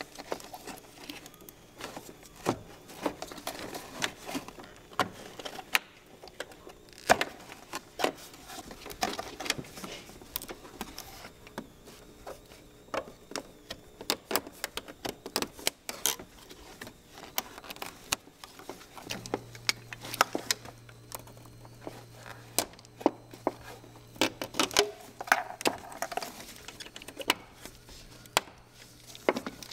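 Gloved hands unclipping hoses and connectors from a Volvo 850's radiator shroud: scattered clicks, taps and light rattles of plastic and metal parts. A faint steady low hum comes in about two-thirds of the way through.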